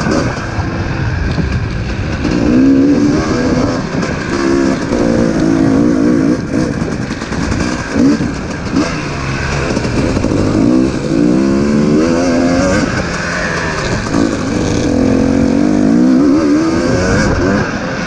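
Dirt bike engine running hard on a trail. Its pitch climbs under throttle and drops back several times, as at gear changes or roll-offs, with wind rushing over the microphone.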